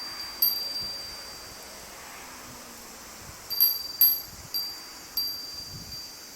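A high-pitched metal chime, struck irregularly about six times, most of them clustered a few seconds in, each note ringing on and fading.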